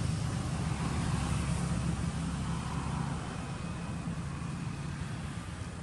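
A steady, low engine hum under a hiss, easing off slightly toward the end.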